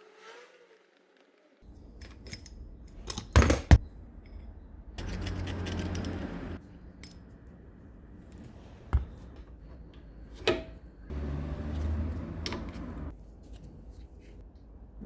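Small metal parts clinking and knocking as they are handled, with two stretches of steady rushing noise, each about two seconds long.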